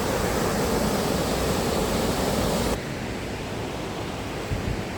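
Powerful waterfall rushing. About three seconds in it cuts off abruptly to a quieter, duller steady rush, with a couple of soft thumps near the end.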